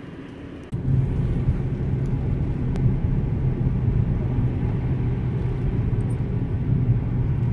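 A moving car's steady road and engine rumble heard from inside the cabin, with a low hum; it jumps suddenly louder just under a second in.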